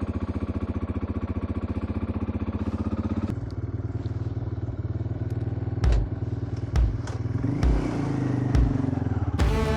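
Motorcycle engine idling on choke just after a cold start in sub-zero frost, with a steady rhythmic beat. About three seconds in the note changes suddenly, and four dull thumps follow about a second apart.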